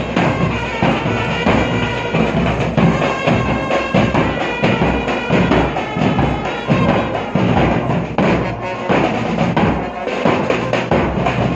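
Street band playing: saxophone and trumpet carry a melody over fast, steady beating of large bass drums and smaller side drums. After about seven seconds the horns fade back and the drums dominate.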